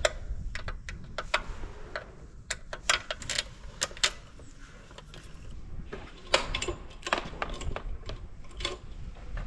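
Irregular light clicks and rattles of a throttle cable and its metal fittings being handled and worked free on a petrol slat scraper.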